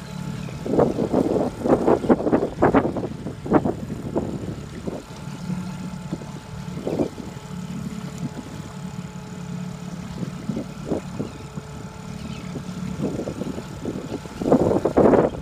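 Boat motor running steadily at low speed, a constant low hum. Water slaps the hull in short irregular bursts, thickest in the first few seconds and again near the end.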